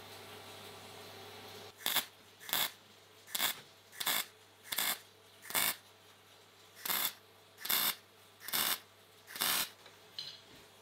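MIG welder laying short tack welds on a steel tube: about ten brief bursts, each a fraction of a second long and less than a second apart.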